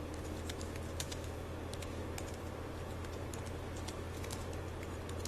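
Touch typing on an ultra-slim wireless Bluetooth keyboard: a quick, irregular run of light clicks from its low-profile keys, over a steady low hum.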